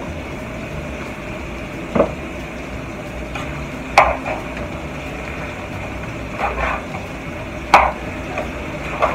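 A spoon knocking and scraping in a saucepan while stirring rice: a few sharp clinks about two seconds apart and a brief scrape midway, over a steady low hum.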